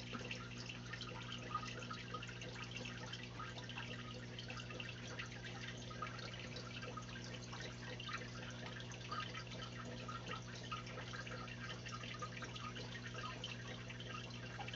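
Aquarium water trickling and bubbling, with many small irregular drips and splashes, over a steady low pump hum.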